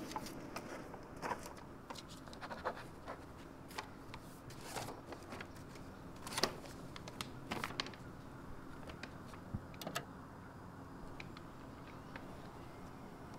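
Quiet, irregular small scratches, clicks and rustles of something being handled, over a low steady room hum; the clicks thin out and stop about ten seconds in.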